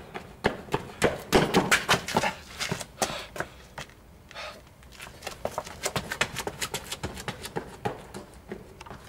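Running footsteps slapping on a paved street, a quick train of sharp steps, loudest between about one and three seconds in, then a second run of steps toward the end.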